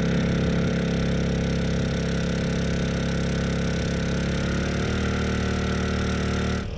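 Honda EU2200i inverter generator's single-cylinder engine, converted to run on propane, running steadily under a heavy load of about 1,950 watts, near its 2,200-watt peak. Its pitch shifts slightly about five seconds in.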